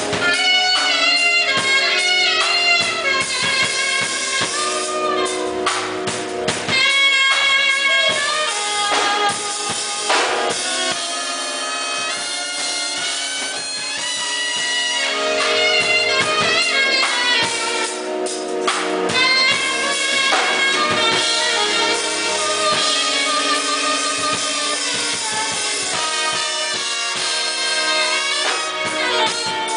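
Music: a band playing, with drums and a horn carrying the melody.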